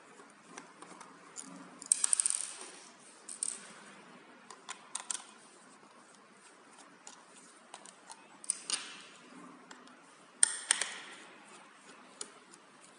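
A screwdriver backing small screws out of a plastic solar light battery box: scattered light clicks and scrapes, with small metal screws clinking down onto a table. The louder clattering clusters come about two seconds in, near nine seconds and at about ten and a half seconds.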